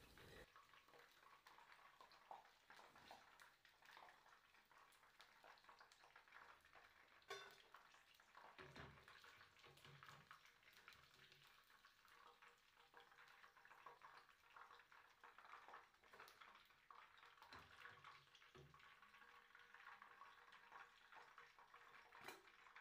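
Faint sizzling and crackling of hot vegetable oil as akara (bean fritters) fry in a wok, with a few soft knocks around the middle.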